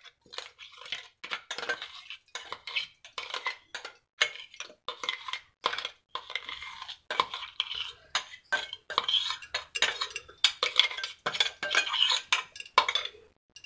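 Steel spoon scraping and clinking against a stainless-steel mixer-grinder jar, knocking ground chilli seeds out onto a steel plate: many quick, irregular metal scrapes and taps.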